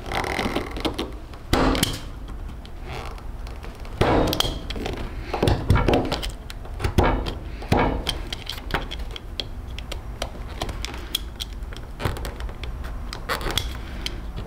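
Plastic parking-sensor brackets handled and fitted into a modular steel bumper: irregular clicks, knocks and light rattles with short pauses.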